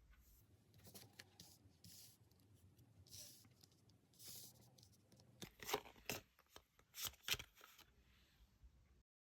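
Tarot cards being handled at close range: a few soft sliding swishes, then a cluster of sharp card snaps and taps.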